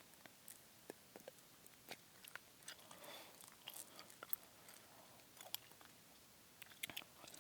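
Gum chewing close to a sensitive microphone: quiet, irregular sharp mouth clicks and smacks.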